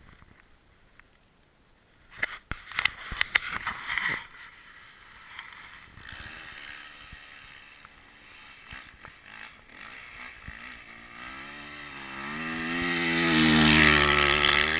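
A burst of sharp knocks about two seconds in. Then a motocross bike's engine is heard from far off, revving up and down as it rides through snow, and grows steadily louder until it passes close by near the end.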